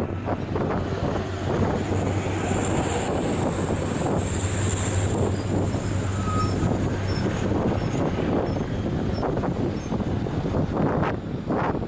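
Heavy diesel truck labouring up a steep climb under a heavy load, its engine running as a steady low drone under broad road and mechanical noise.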